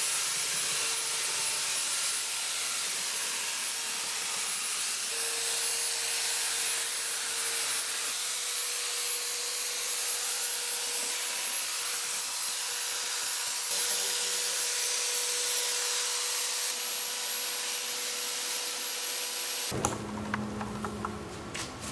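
Handheld electric paddle mixer running at a steady speed, a high, even whir with a faint steady whine, as its paddles churn injected foam into cement slurry. It cuts off abruptly about twenty seconds in, followed by a few sharp knocks.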